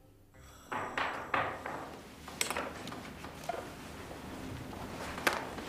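A person getting up from a seat and moving about on a hard floor: a string of soft knocks, rustles and footsteps, with a sharper knock near the end.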